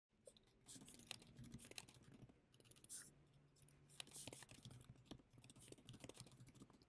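Faint, irregular clicking of keys typed on a computer keyboard.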